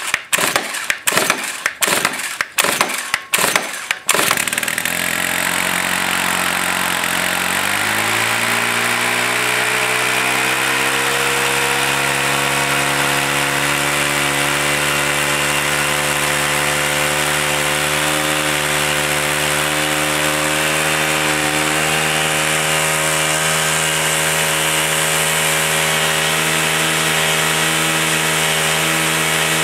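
Stihl FS110 brushcutter's 4-MIX engine cold-started at −4 °F: a run of stiff pull-start strokes against high compression, then the engine catches about four seconds in. It runs at a low speed, its speed steps up about eight seconds in, and it then runs steadily.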